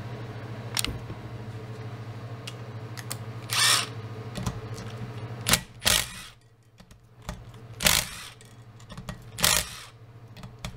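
Cordless impact driver running in about five short bursts, backing out the bolts that hold a dual-mass flywheel together. A steady low hum runs under the first half.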